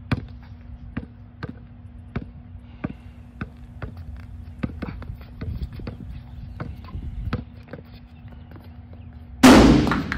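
A basketball being dribbled on an outdoor concrete court, sharp bounces about two a second. Near the end there is a sudden loud burst of noise lasting about half a second, the loudest sound here.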